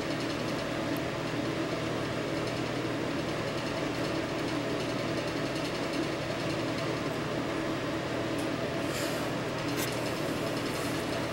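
Steady mechanical drone with a low hum underneath, as of a fan running in the workshop, with a few faint light clicks near the end.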